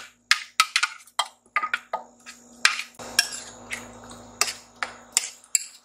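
Metal spoon scraping out a plastic food processor bowl and knocking against a mixing bowl while stirring salsa: a run of irregular clinks and knocks.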